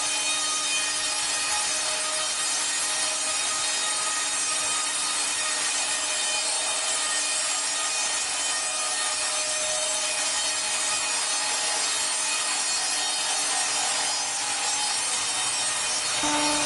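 Wood being sawn: a steady, unbroken hissing noise with a faint even hum beneath it and no stroke-by-stroke rhythm. A stronger hum comes in near the end.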